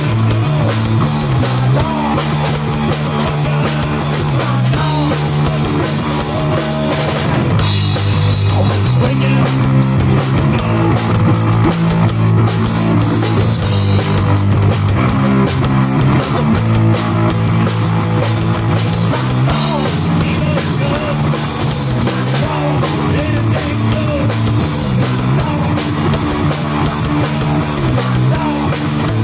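Live rock band playing a song on guitar, bass guitar and drum kit, the bass notes stepping through a repeating line under steady drums, with cymbals busier in the middle.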